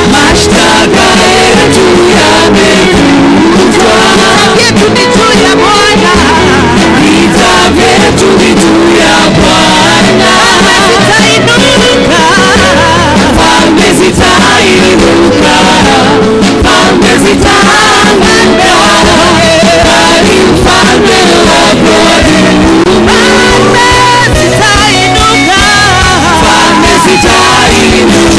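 Live gospel worship music: voices singing over a full band with a steady drum beat.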